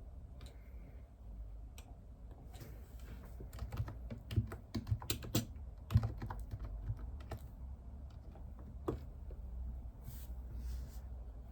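Typing on a computer keyboard: a run of quick keystrokes in the middle, with scattered single clicks before and after.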